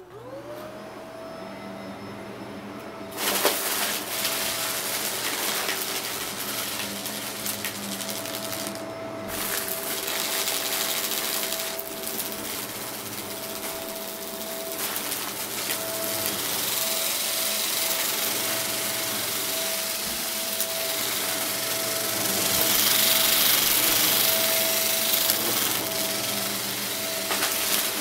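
Upright vacuum cleaner switched on: its motor winds up with a rising whine that levels off within a second. About three seconds in, a sharp click is followed by a loud, steady rush of suction as it is pushed over a rug, with crackling from the crunchy debris being picked up. It grows louder for a few seconds near the end.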